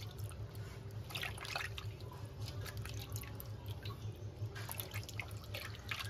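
Water splashing and dripping as hands wash cut pieces of pangas fish in a steel bowl of water, with many short, irregular splashes.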